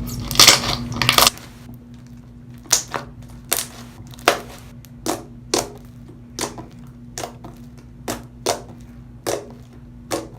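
Freshly mixed glue-and-lotion slime being worked by hand: a second of louder squelching, then a regular run of short squishy clicks about every three-quarters of a second.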